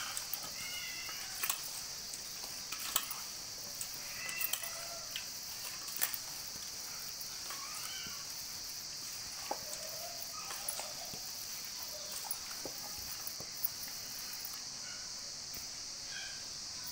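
Hands mixing marinated chicken pieces in a stainless steel bowl, giving scattered soft clicks and taps. Behind them is a steady high chirring of crickets and occasional short chirps.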